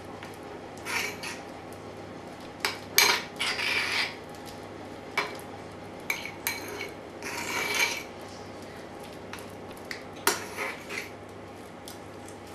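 A utensil stirring a thick cheese, mustard and creme fraiche mixture in a bowl: irregular clinks and short scrapes against the bowl, coming in bunches with pauses between.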